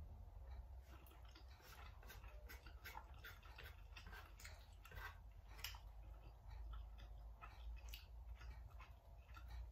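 A person slurping and chewing noodles close to the microphone: faint, irregular wet mouth clicks.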